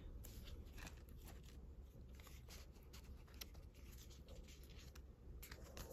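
Near silence with faint, scattered rustles and clicks of paper and stickers being handled.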